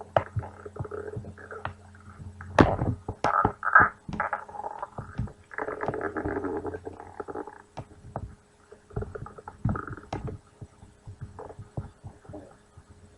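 Human stomach growling and gurgling: irregular bubbly rumbles and squelches, loudest a little under a third of the way in, with a longer rolling gurgle near the middle.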